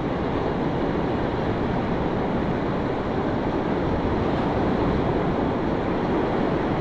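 Steady rushing noise of surf and wind on a beach, even throughout with no distinct breaks or strokes.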